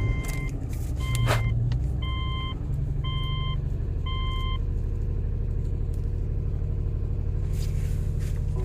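2006 Subaru Tribeca's 3.0-litre flat-six catching and idling rough with a misfire, which the mechanic calls even worse. A dashboard warning chime sounds five times, about once a second, in the first half.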